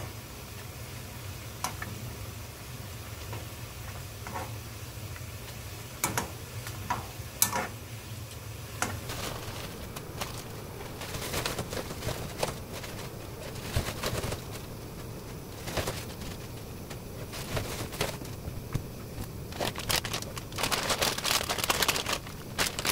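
Kitchen sounds at a pan on the cooktop: a steady low hum with scattered light clicks and knocks, and stretches of crackling noise, densest near the end.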